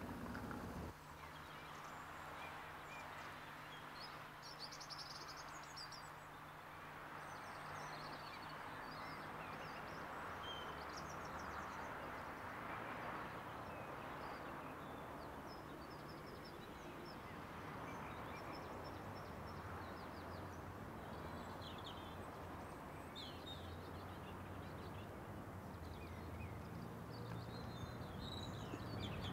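Faint outdoor ambience: a steady background hiss with scattered short bird chirps and calls throughout.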